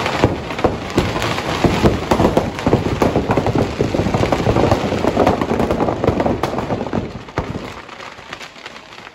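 Firecrackers packed inside a burning Ravan effigy going off in a rapid, dense barrage of cracks and bangs. The barrage thins out over the last two seconds.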